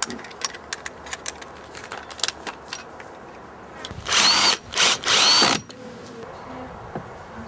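Power drill driving wood screws to fix a side float to a rowing boat's rigger: two loud runs about four seconds in, each with a motor whine that rises and falls, after a string of light clicks and taps.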